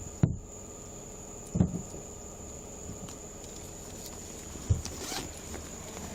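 Three short dull knocks spaced a second or more apart, then a brief rustle, over a steady faint high-pitched whine.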